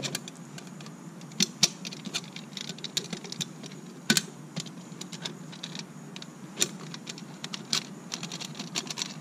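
Irregular small clicks and taps from handling a wet-niche pool light, its metal housing and lens ring being fitted together, with a few sharper clicks standing out.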